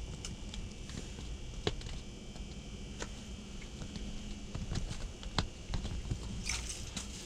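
Scattered small clicks and taps from handling ice-fishing gear and fish between catches, over a low steady hum, with a brief rustle about six and a half seconds in.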